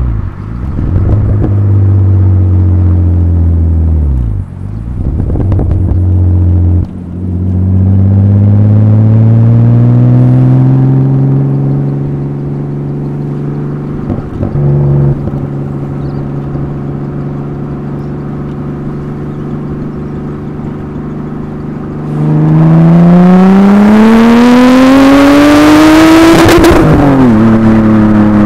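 Nissan RB25DET Neo turbocharged straight-six heard at the exhaust of an R31 Skyline: the revs drop at a few gear changes in the first seven seconds, rise through a gear, then hold steady at a cruise. About 22 seconds in it pulls hard, loud, with the revs climbing for about four seconds before dropping sharply and falling away.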